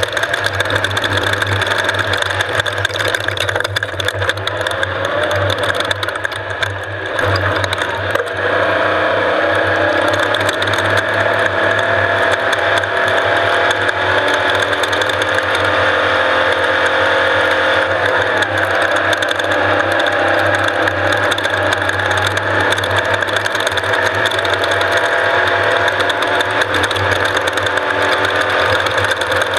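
Off-road race vehicle running steadily, its engine drone overlaid with a constant loud mechanical rattle.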